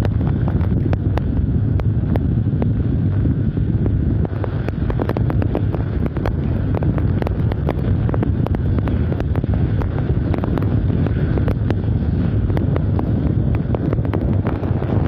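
Storm wind from a hurricane buffeting the microphone in a continuous loud low rumble, with heavy rain and frequent sharp crackles throughout.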